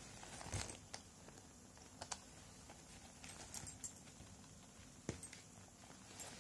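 Hands handling a leather-look backpack: faint rustling of the material, with a handful of sharp clicks and taps from its metal fittings as the flap is lifted and the drawstring opening pulled apart.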